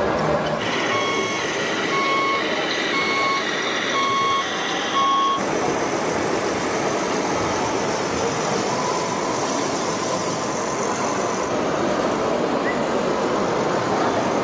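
Reversing alarm beeping five times, about once a second, from the sound module of a scale RC flatbed tow truck. It cuts off about five seconds in, leaving steady background noise.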